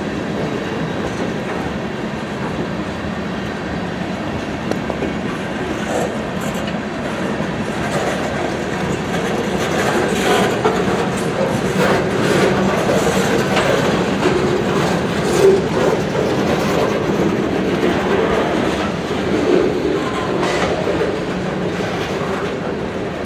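Freight cars rolling past, steel wheels on rail running with a steady clickety-clack. Scattered knocks come through, and one sharper knock about fifteen seconds in.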